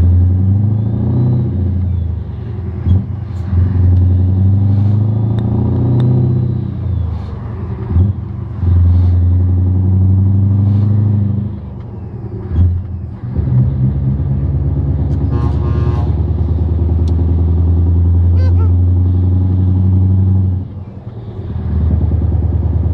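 Scania T164's V8 diesel engine heard from inside the cab while driving, its pitch rising and falling as it pulls. The engine sound drops away briefly about halfway through and again near the end.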